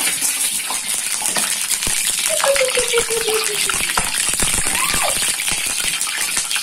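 Hot cooking oil sizzling and spitting in a cast-iron wok on a gas stove, with many sharp pops throughout. The spattering comes from water that got into the hot oil.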